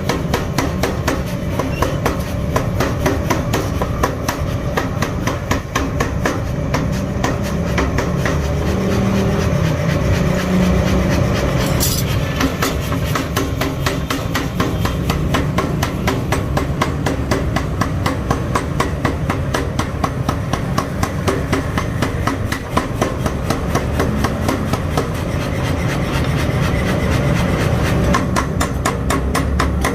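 A 15 kg mechanical power hammer striking steel in a fast, steady run of blows while a steel rod cutter is forged, over the machine's continuous low running rumble.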